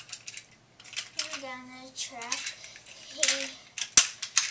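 Plastic toy train coaches clicking and clattering as they are pushed along and fitted together on plastic track, with one sharp click about four seconds in. Between the clicks a child makes wordless voice sounds.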